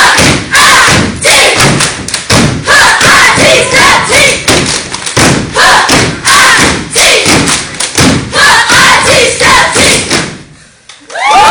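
Step team stomping and clapping in rhythm on a hard floor, with voices shouting along. The routine stops sharply about ten seconds in, a brief hush follows, and cheering breaks out right at the end.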